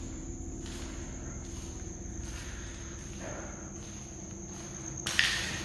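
Crickets chirping in a steady high-pitched trill, with faint footsteps and one sharp knock about five seconds in.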